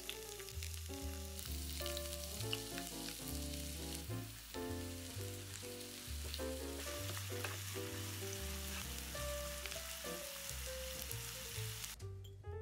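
Food sizzling as it fries in oil in a pan, a steady crackling hiss that cuts off abruptly near the end, over soft background music with a melody and bass line.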